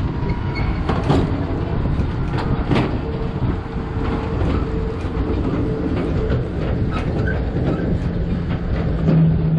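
Open-air tram trailer cars rolling over pavement: a steady rumble with frequent rattles and knocks from the cars, and a steady whine for a few seconds midway.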